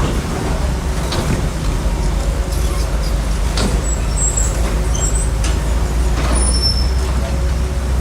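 Bulldozer's heavy diesel engine running steadily with a deep rumble, with a few faint clanks over it.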